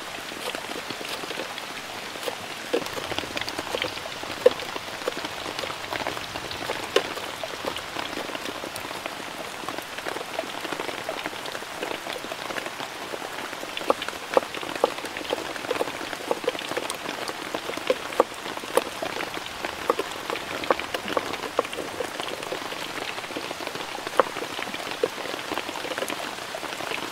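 Heavy rain falling steadily, with many sharp drops striking close by.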